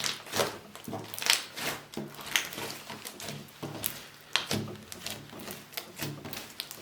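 Slime being squeezed and pressed by hand, giving an irregular run of sticky crackles and clicks, several a second.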